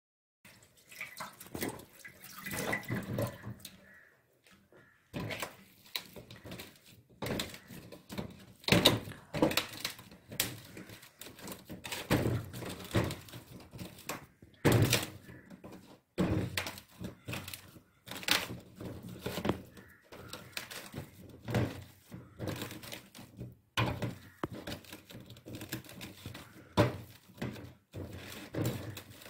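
Boiled potatoes being crushed with a wire hand potato masher in a steel bowl: repeated soft thunks as the masher presses down and knocks the bowl, roughly one a second.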